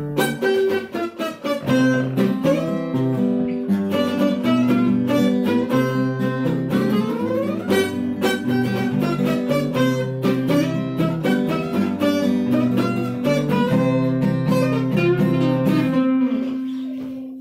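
Two acoustic guitars playing together, strummed chords with picked melody notes. Near the end the playing stops on a final note that is left ringing and fades away.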